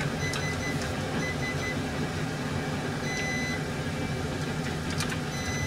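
Induction cooktop's control panel beeping several times, short high beeps as its buttons are pressed, over a steady low hum.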